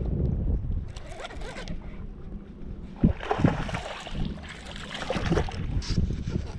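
Outdoor noise in a small fishing boat: wind rumbling on the microphone, a sharp knock about three seconds in, then a few seconds of irregular rustling and knocking.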